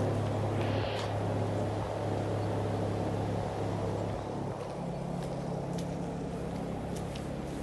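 Steady low mechanical hum of running machinery: a motor drone of several low tones that changes in tone about four seconds in, with a few faint clicks.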